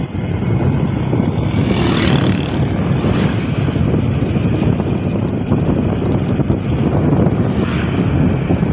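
Wind buffeting the microphone of a moving vehicle, over steady vehicle and road noise, with two brief swells about two seconds in and near the end.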